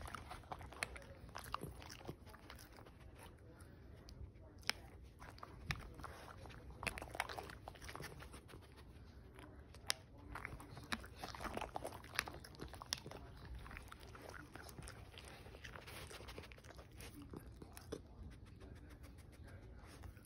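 Miniature dachshunds crunching and chewing treats taken from a hand: a run of irregular crisp crunches and clicks.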